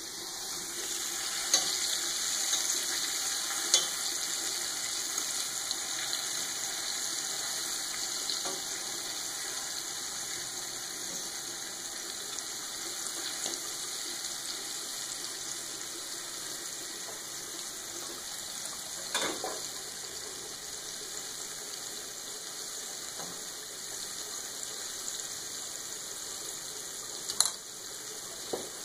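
Floured squid rings deep-frying in hot oil in a stainless-steel pan: a steady sizzle that swells about a second in as the pieces go into the oil, then eases slowly. A few sharp clicks come through the sizzle.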